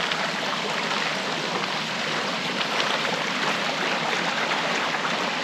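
Hot tub water churning and bubbling in a steady rush of water noise.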